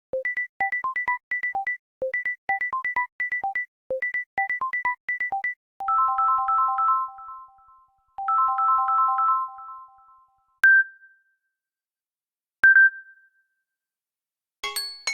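Samsung Galaxy A70 original ringtones played in turn. First comes a fast electronic beeping melody of short pips that repeats about every two seconds. Then come two held three-note chimes that fade out, and two single short high pings about two seconds apart.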